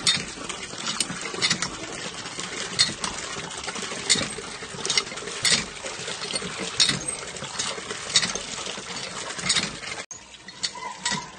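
Hand-lever water pump being worked, its water gushing and splashing into a plastic bucket, with a sharp metal clank from the pump at each stroke, about one every second. The sound cuts off abruptly near the end.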